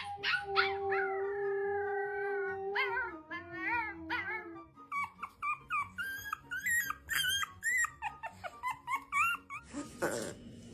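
Puppy howling: a long wavering howl, then a run of short, rising yips and whines, over background music.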